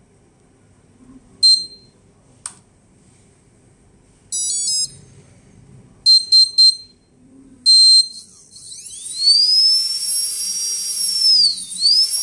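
A 40A brushless ESC playing its start-up beeps through an outrunner brushless motor: single beeps, a short run of changing tones, three quick beeps and a longer beep. The motor then spins up with a rising whine that holds steady, dips briefly near the end and climbs again as the throttle is worked.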